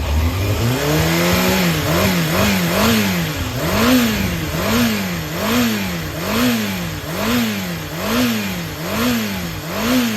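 Yamaha XJR400 (4HM) air-cooled inline-four engine being blipped on the throttle, revving up and dropping back about a dozen times in quick succession, roughly once a second. The engine is pulling cleanly, with no abnormal noise according to the seller.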